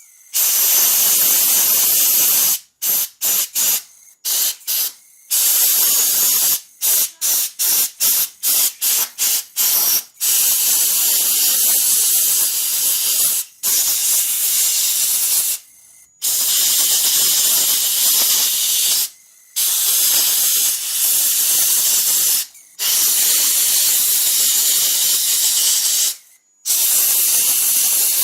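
Compressed air blasting into the vent holes and fins of a brushed RC car motor, a Titan 12-turn 550, to blow out built-up dust. It comes as a loud hiss in blasts of a few seconds with short breaks, with a run of short quick bursts partway through.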